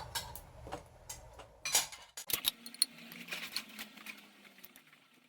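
Spoon and cutlery clinking against a bowl in a series of light taps during eating, one louder clink about two seconds in. A faint steady hum follows.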